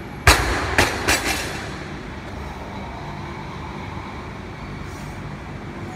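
Barbell loaded with rubber bumper plates dropped onto the lifting platform: one heavy thud a moment in, then two or three smaller bounces over the next second. Afterwards only a steady background rumble.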